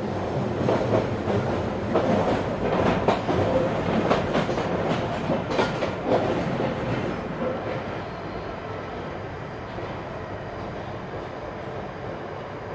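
Interior running noise of a London Underground 1995 Stock train: wheels clattering over rail joints and points, easing off after about seven seconds to a quieter, steady hum as the train slows into a station.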